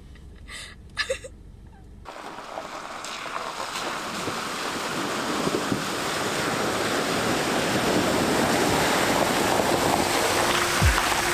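Water surging and splashing as a Subaru Forester ploughs through a deep creek crossing, its wheels pushing a bow wave. The rush starts suddenly about two seconds in and grows louder as the car comes closer.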